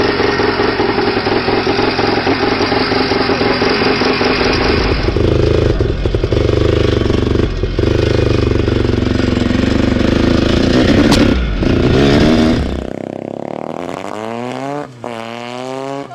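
Wankel rotary-engined dirt bike running: at first a steady idle, then louder and deeper as it is ridden. After a sudden change about thirteen seconds in, a bike is heard farther off, revving, its pitch sweeping up and down several times.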